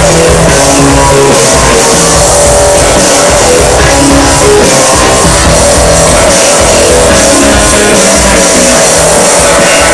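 Loud music playing without a break.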